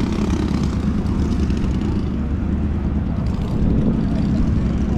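A steady low engine drone with no clear rise or fall, and faint voices beneath it.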